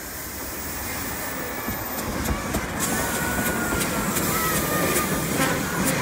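Narrow-gauge NA-class steam tank locomotive hauling its wooden carriages, growing louder as it nears, with sharp exhaust chuffs from about halfway through.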